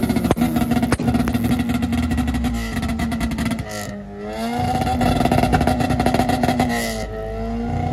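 Car engine revved hard and held at high revs. The revs dip and climb back about halfway through and again near the end.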